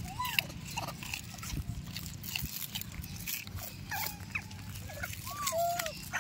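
Rhesus macaques giving short squeaky calls that rise and fall in pitch, several scattered through, the loudest pair near the end, over scattered crunching of food as the troop eats.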